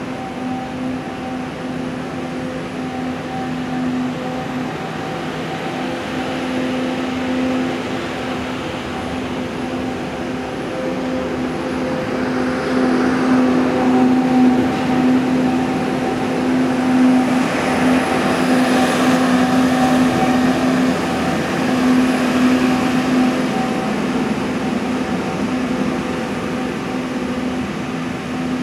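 Construction-site machinery running: a steady drone at one fixed pitch over a wash of general site noise, which swells about halfway through and eases off again toward the end.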